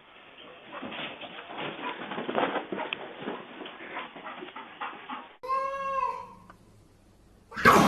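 Domestic animal sounds: a stretch of uneven rough noise, then a single pitched animal call lasting about a second, starting about five and a half seconds in, and a sudden loud burst near the end.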